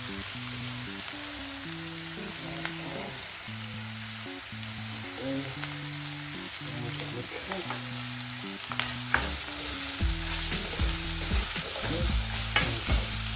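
Chicken, onion and green pepper sizzling as they fry in a pan while being stirred. The sizzle grows louder about nine seconds in, and the stirring utensil clicks and knocks against the pan several times toward the end.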